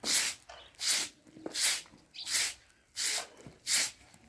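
Rhythmic scraping strokes, six in a row, about one every three-quarters of a second.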